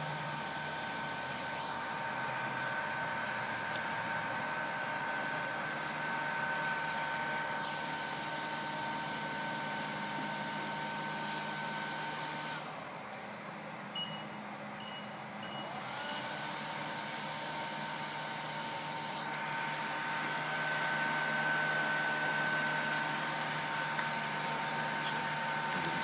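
The hot-air blower of a Bird 8888 BGA rework station runs with a steady whine and rushing air. About halfway through the whine cuts off, the station gives four short beeps, and the blower spins back up with a rising whine a few seconds later.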